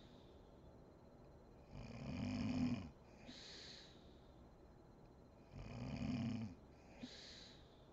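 A sleeping woman snoring: two low snores about a second long, roughly four seconds apart, each followed about half a second later by a short, breathy, hissing out-breath.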